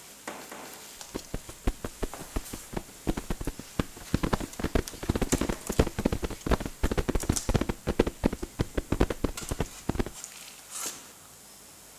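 Rapid, irregular patter of small taps and knocks that grows denser in the middle and stops abruptly about ten seconds in.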